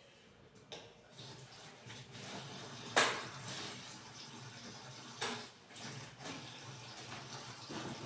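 Tap water running into a kitchen sink while containers are washed, with a sharp clatter of dishware about three seconds in and another about five seconds in.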